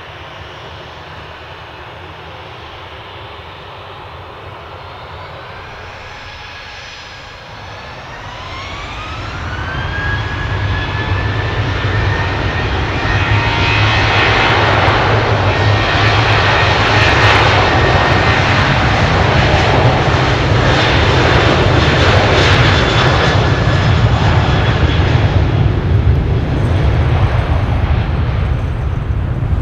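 Boeing 737-700's two CFM56-7B turbofan engines spooling up to takeoff thrust: a whine rises in pitch about eight seconds in, then a loud steady roar with a deep rumble as the jet accelerates down the runway, easing a little near the end as it moves away.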